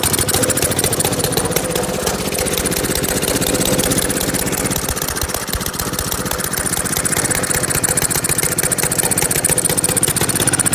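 Honda GC190 single-cylinder lawnmower-type engine running steadily, with rapid, even firing pulses. It runs on a makeshift flywheel key made from pennies after a hydrolock sheared the original key.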